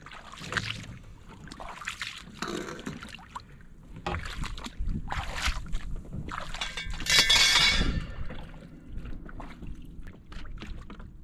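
Wading through shallow water and mud on an oyster reef: a series of sloshing splashes, the loudest about seven seconds in, followed by a few small clicks near the end.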